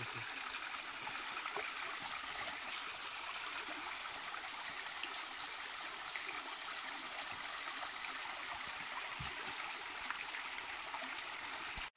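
Shallow rocky creek babbling steadily as water runs over and between stones, a continuous rushing hiss that cuts off abruptly at the very end.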